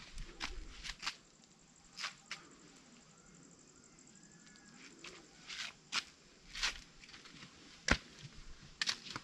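Footsteps crunching and scuffing on a gritty rock-and-dirt trail, in sharp, irregular steps with a brief lull near the middle.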